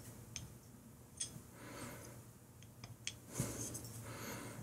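Faint, scattered small clicks and handling noise as wooden grip panels are fitted onto a stainless steel revolver frame.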